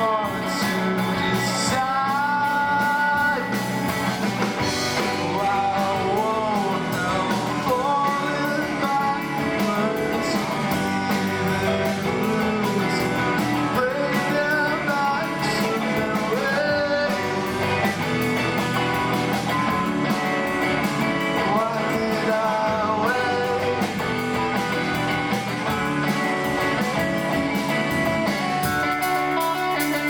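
Rock band playing live, with electric guitars, bass guitar and drum kit.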